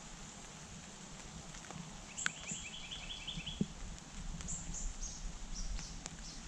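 Bare feet walking on a dirt path strewn with dry bamboo leaves, with soft scattered crunches. A bird gives a quick run of about ten chirps about two seconds in, and short high chirps come and go throughout.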